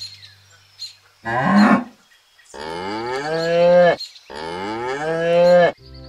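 Cow mooing three times: a short moo about a second in, then two long moos, each rising in pitch.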